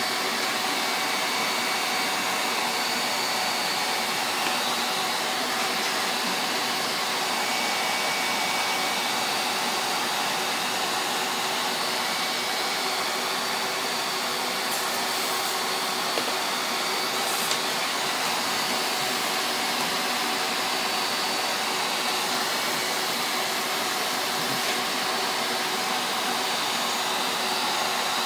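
Shop vac running steadily: a constant rush of air with a faint high whine from the motor.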